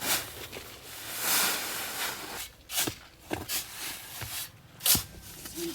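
Scraping and rubbing from concrete work: one longer rasping scrape about a second in, then several short scrapes and knocks.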